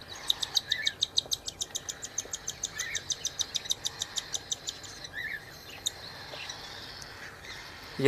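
Cockatiel chick being hand-fed from a syringe, giving rapid, even, high begging chirps, about eight a second, that fade and stop after about four seconds. A few softer separate calls come in between.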